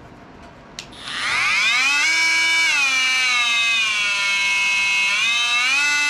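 Ryobi ONE+ HP brushless oscillating multi-tool (PBLMT50) switched on after a click: its motor whine climbs quickly in pitch, drops to a lower speed for a couple of seconds, then rises again near the end.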